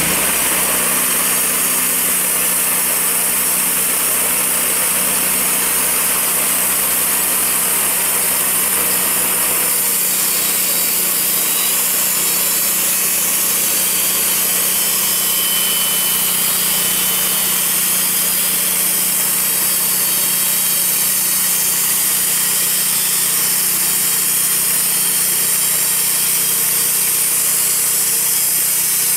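Wood-Mizer LT40 portable bandsaw mill running steadily, its engine driving a new 4-degree band blade through a maple log. The sound's tone changes about ten seconds in.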